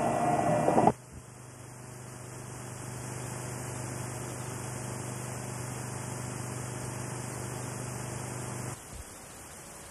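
A loud sustained tone cuts off about a second in, leaving steady electronic hiss with a low mains hum. Near the end the hum stops and only the hiss remains.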